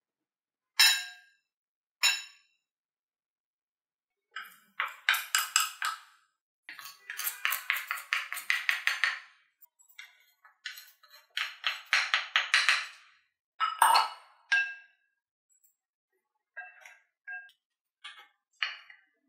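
Two sharp glass clinks, then dry baking ingredients, flour first, poured from small bowls into a glass mixing bowl in several rustling, crackly pours lasting a second or two each. There is a single knock midway, and a few short soft sounds near the end.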